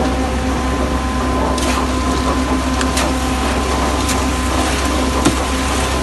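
Engines of a truck mixer and concrete pump running with a steady low drone as wet concrete slides onto the pump hopper's grate, with a few sharp knocks.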